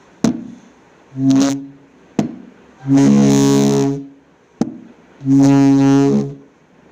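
A stick being worked to make sound: three low, steady buzzing hums, one short and two lasting about a second, with a sharp click before each.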